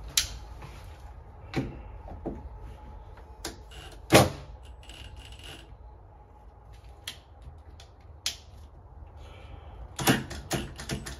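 Scattered clicks and knocks from handling a metal door latch and screwdriving tool against a door frame, with one sharper knock about four seconds in and a quick run of clicks near the end.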